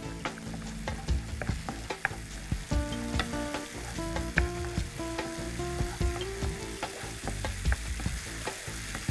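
A spatula stirring and scraping a thick chilli masala paste as it sizzles and fries in oil in a nonstick kadai, with frequent clicks of the spatula on the pan. The paste is being fried until its oil separates out. Soft held tones of background music lie underneath.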